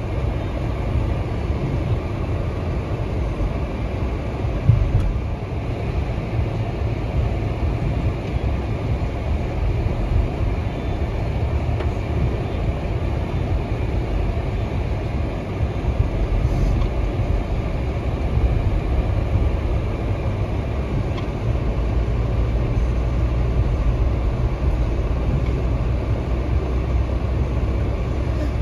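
Car driving on wet pavement, heard from inside the cabin: a steady low rumble of engine and tyres, with a brief bump about five seconds in.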